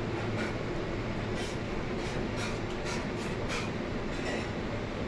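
Steady commercial-kitchen din: a low hum and rush, with a deep fryer bubbling as it fries kibbeh. Through the middle comes a run of light, sharp metallic clicks as the stainless steel bowl and skewers are handled.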